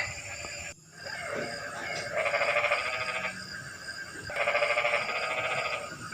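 Frogs calling: two long, rapidly pulsing calls about a second each, one about two seconds in and another in the second half, with a shorter call at the very start.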